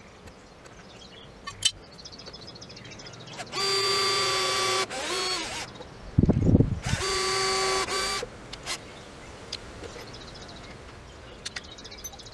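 Cordless drill driving a screw into a timber frame: two steady whining runs of about a second each, the first slowing down as it ends, with a short loud low rumble between them.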